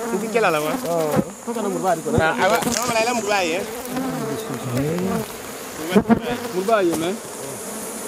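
A swarm of honeybees buzzing loudly around and inside a traditional woven basket hive, many bees passing close to the microphone so the buzz keeps rising and falling in pitch.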